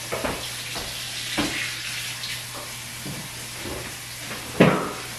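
Kitchen work noise: a steady hiss with a few knocks and clatters, the sharpest near the end.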